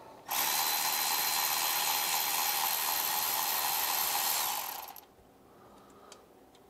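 Milwaukee cordless ratchet motor running steadily for about four and a half seconds, backing a glow plug out of the 7.3 Powerstroke diesel's cylinder head, then stopping. A few faint clicks follow.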